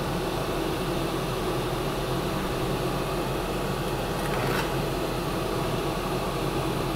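Steady whirring hum of a kitchen fan running over the stove. About four and a half seconds in there is a light scrape of a metal spoon against the cast-iron skillet as steak is scooped out.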